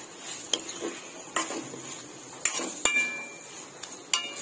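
Spatula stirring paneer cubes and masala in a metal kadai, scraping and knocking against the pan about once a second. The loudest knock, about two-thirds of the way through, rings on like struck metal. Under it runs a faint, steady sizzle.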